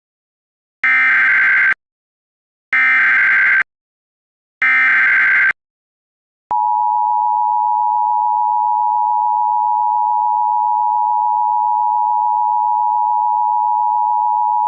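Emergency Alert System tones: three short bursts of the digital SAME header, each just under a second, about a second apart. About six and a half seconds in, the steady two-tone EAS attention signal begins and holds.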